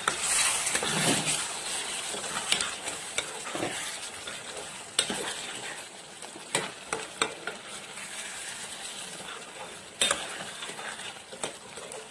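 Potato-and-pea masala sizzling in a metal kadai, a steady hiss broken now and then by sharp clinks and scrapes of a spoon stirring it against the pot, which keeps the masala from sticking to the bottom.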